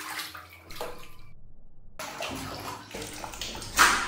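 A monkey's hands splashing water in a plastic basin, in two spells with a short pause between them. The loudest splash comes near the end.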